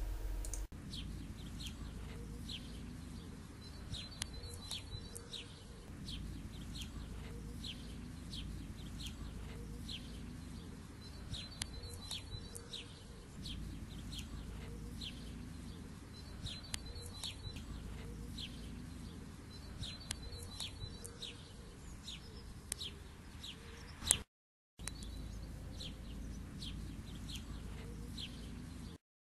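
Birds chirping in short, repeated high calls over a low steady rumble. A sharp click about 24 seconds in is followed by half a second of silence before the chirping resumes.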